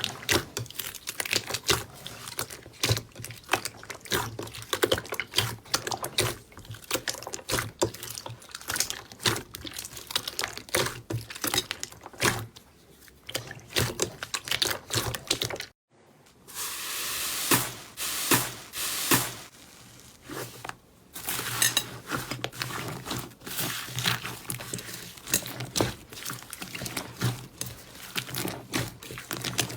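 Slime being squeezed and kneaded by hand, a fast run of sticky clicks and pops. About sixteen seconds in it cuts out for a moment, then starts again with a brief hissing stretch before the clicking returns.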